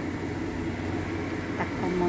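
Steady low rumble from the stovetop under a lidded wok as the chicken cooks, with a faint click near the end.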